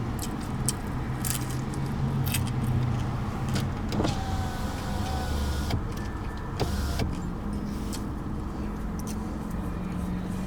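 Steady hum of cars running, with low engine tones that shift as vehicles pass, and a scattering of short clicks.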